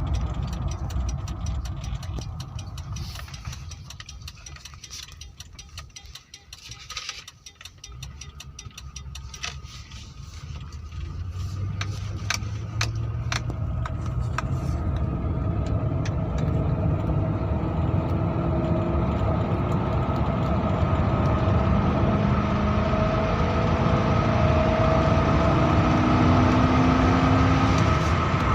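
Car engine running; it falls away with scattered clicks about a quarter of the way in, then comes back and grows steadily louder, its pitch slowly rising.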